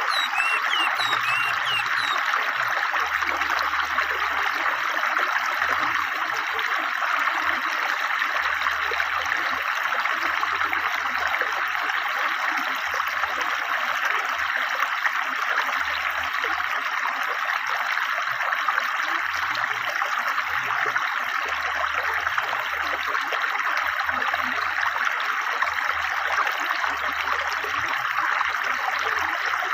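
A river's water running swiftly over stones, a steady rushing and splashing. A few short bird chirps sound in the first second or two.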